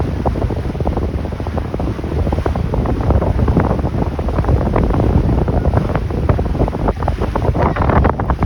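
Strong wind buffeting the microphone on a moving tour boat, over the rumble of the boat's motor and water splashing.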